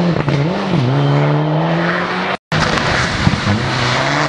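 Rally car engine revving hard as it accelerates away, its pitch dipping and climbing again at gear changes. It cuts off abruptly about halfway, and then another rally car's engine is heard, running at a steadier lower note as it comes into the corner.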